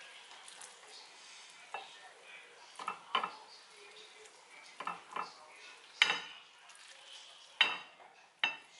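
A spatula scraping cooked rice out of a stainless steel saucepan onto a plate, with irregular sharp knocks against the pot and plate, the loudest about six and seven and a half seconds in.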